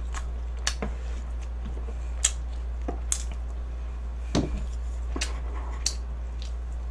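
Close-up eating: chewing and mouth smacks with scattered sharp clicks and taps of chopsticks and a fork on a plastic lunchbox tray, over a steady low hum.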